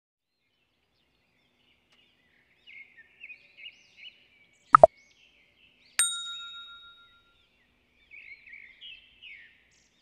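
Intro sound effects: short bird chirps, then two sharp clicks like a button being pressed, then a bright bell ding that rings out for about a second, and more chirps near the end.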